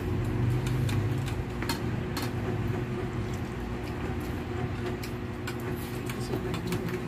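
Eating at a table: scattered light clicks and clinks of cutlery and plates, with chewing, over a steady low background hum.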